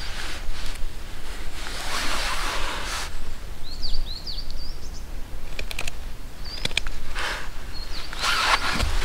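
Small birds chirping, a run of short high calls with quick pitch flicks around the middle, over several soft rustling swishes and a low steady rumble.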